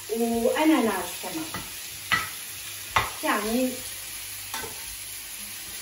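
Nectarine halves frying in butter in a frying pan, sizzling while a spatula stirs and turns them. There are two sharp taps of the spatula on the pan near the middle and a few short pitched sounds, the loudest in the first second.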